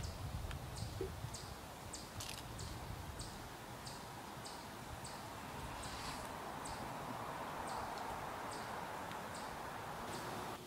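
Woodland ambience: a short, high chirp repeating evenly about every 0.6 seconds over a soft steady hiss.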